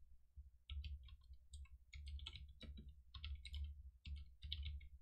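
Computer keyboard being typed on: a quiet, irregular run of key clicks while a file name is entered.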